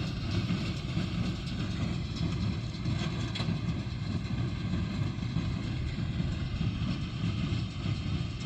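Tractor engine running steadily while pulling a small square baler through the hay, the baler's machinery working along with it.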